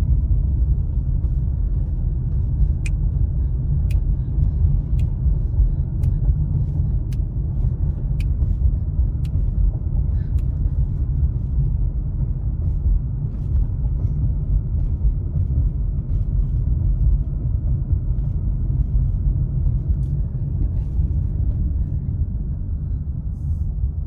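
Steady low rumble of tyre and engine noise heard inside a car driving at low speed on a residential road. Faint ticks come about once a second for several seconds, from about three to ten seconds in.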